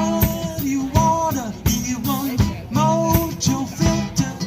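Background music with drum hits and a melody line.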